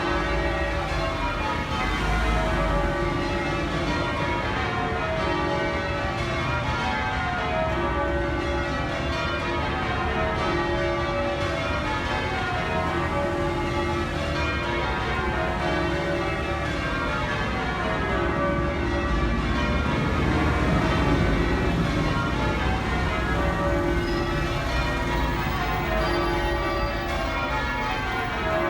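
Church bells of St Mary Abbots, Kensington, rung in English change ringing: a steady stream of bell strokes falling in repeated descending runs. The ringing is the call to Sunday morning service.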